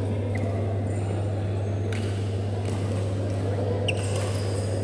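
Badminton hall ambience: a steady low hum, reverberant background voices, short squeaks of shoes on the court floor, and a couple of sharp clicks, about two and four seconds in.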